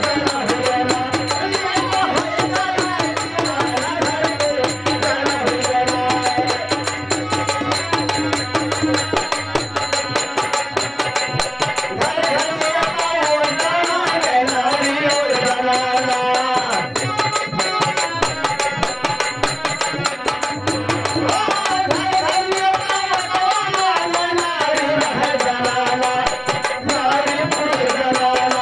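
Devotional bhajan music: a harmonium plays the melody over a steady, fast dholak drum rhythm, with a man's voice singing along.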